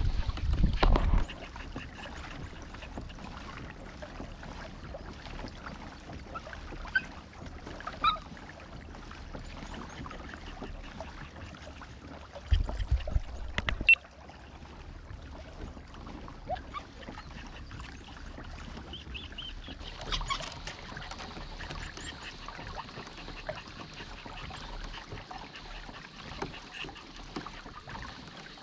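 A kayak moves along calm creek water, with light splashing and water noise around the hull. Brief gusts of wind buffet the microphone near the start and again about halfway through.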